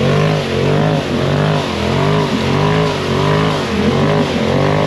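Lifted side-by-side UTV's engine revving up and down over and over, about twice a second, as it is throttled hard through deep, sticky mud.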